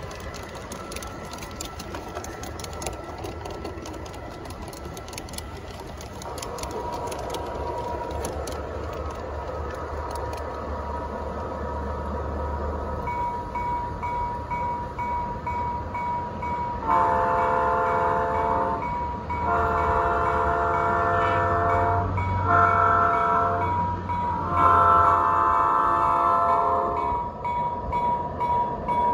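G-scale model freight cars clicking over rail joints, then an Aristocraft Dash 9 model diesel's onboard sound system sounding its horn four times, long, long, short, long (the grade-crossing signal), over a low engine rumble as the locomotive approaches.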